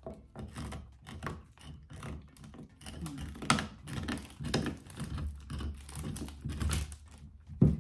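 A dog chewing on a bone: irregular crunching clicks and gnawing, a few a second, with one louder knock near the end.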